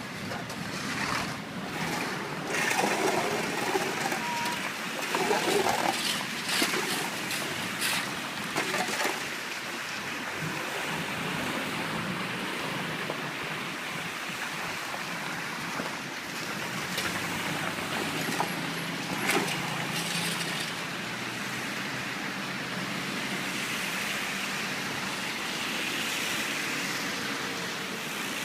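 Road traffic going by: a steady hiss of tyres and engines, with louder passing vehicles in the first several seconds.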